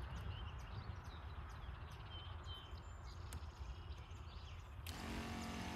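A push sprayer's pump switches on about five seconds in and runs with a steady hum, circulating the tank to agitate and mix the spray solution. Before it starts there is only low outdoor noise with a few faint bird chirps.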